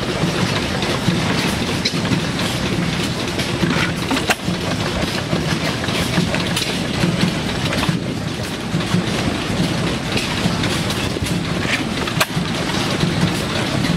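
Renfrew sideshaft stationary engine running: a steady mechanical clatter and low hum, with a sharper crack every second or two at uneven spacing.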